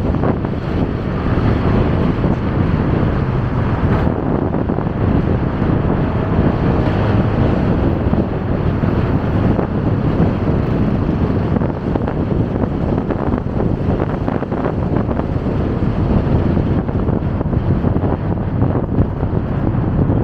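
Steady wind rush on the microphone of a moving motorcycle taxi, with its running engine and the surrounding road traffic beneath.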